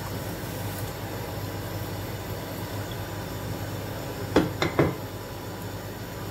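Steady hiss with a low hum, and three quick knocks on a stainless steel cooking pot a little past halfway.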